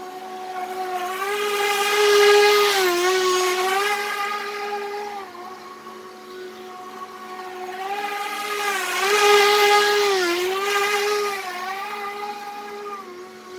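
Hart 20-inch 40 V brushless battery-powered push lawn mower cutting grass: a steady electric motor and blade whine that dips briefly in pitch several times. It grows louder and then fades twice as the mower passes near and moves away.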